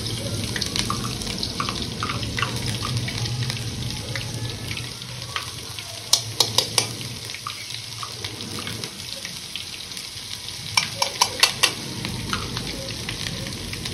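Ginger-garlic paste sizzling in hot oil in a large aluminium pot, a steady hiss. A spoon is tapped against the cup of paste in two quick runs of sharp taps, about six and eleven seconds in.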